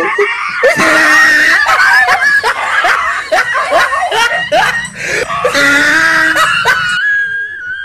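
A dog screaming and yelping in fright: a string of short, high-pitched cries, then a longer held cry near the end.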